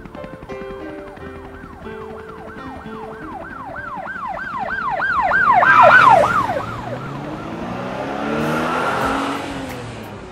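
Emergency vehicle siren in a fast rising-and-falling yelp, about two cycles a second, growing louder to a peak about six seconds in. It then drops in pitch and fades as the vehicle passes, followed by its road rush dying away.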